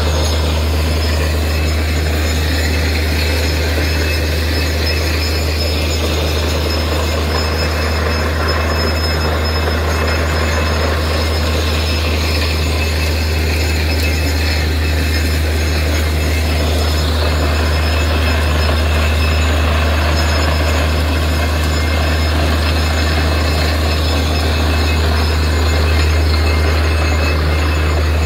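Borewell drilling rig running steadily while drilling: a constant loud low engine drone with rough mechanical noise over it.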